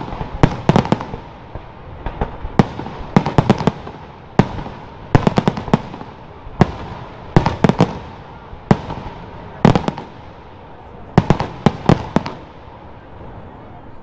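Aerial firework shells bursting overhead: sharp bangs come in quick clusters about every second, with a hiss of burning stars between them, and the bangs stop about two seconds before the end.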